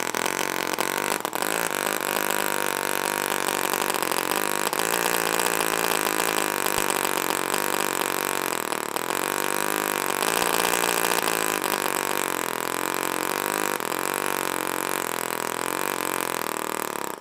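NR-200 miniature two-cylinder four-stroke gasoline engine running steadily, its speed wavering slightly, then cutting out abruptly at the end, which the owner thinks was it running out of fuel.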